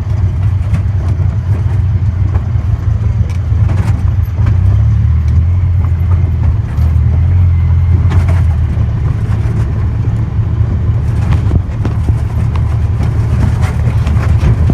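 A motor vehicle's engine running steadily with a low hum, its note shifting slightly partway through, with occasional knocks and rattles.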